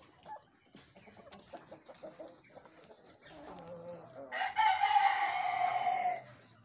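Light Brahma rooster crowing once, a long call of about two seconds that starts about four seconds in, with softer clucking before it.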